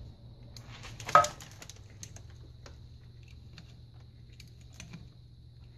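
Handling of a metal suspension control arm and a digital caliper: a short loud clatter about a second in, then scattered light clicks as the caliper is set against the arm's bushing to measure it.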